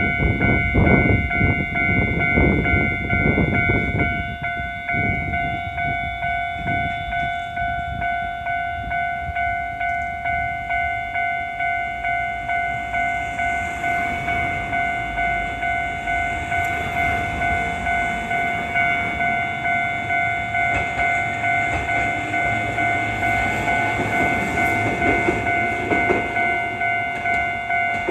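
Japanese level-crossing alarm ringing its repeated electronic "kan-kan", several steady tones pulsing about twice a second. Over the first few seconds a Hankai tram passes over the crossing with a loud low rumble and clatter of wheels on the rails, which then fades while the bell keeps ringing.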